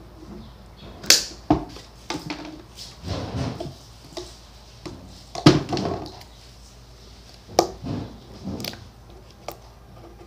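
Irregular handling noises of slime and a plastic bag on a wooden tabletop, with several sharp snaps; the loudest come about a second in and about five and a half seconds in.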